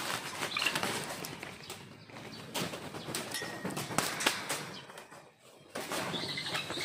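Sea eagles flapping their wings and scuffling as they squabble over food: a run of irregular rustling beats.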